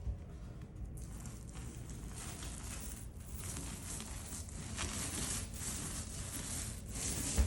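Paint roller being pushed up and down a wall in repeated strokes, a sticky, crackling swish that swells with each pass.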